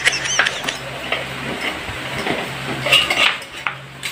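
Light clinking and rustling of plastic PVC pipe fittings being handled and rummaged from a plastic bag, a few small knocks among them.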